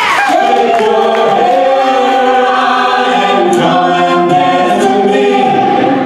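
Live band holding a long final chord, the female lead singer sustaining a note over acoustic guitars and keyboard; the held sound fades out shortly before the end.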